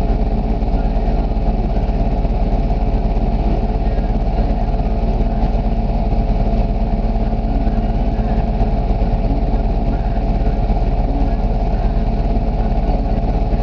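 ATV engine idling steadily, with no revving.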